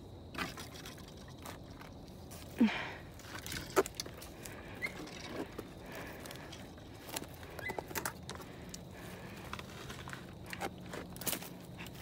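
Footsteps crunching through dry leaf litter and dead twigs: irregular light crackles and snaps, with a couple of louder cracks a little under three and four seconds in.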